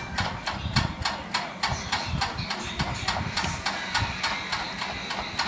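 Steady rapid clicking, about five clicks a second, like a small machine running, with soft irregular handling noise underneath.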